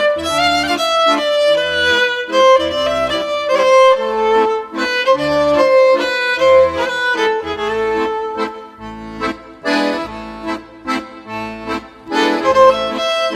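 Instrumental background music with a sustained melody line, getting quieter for a few seconds in the middle.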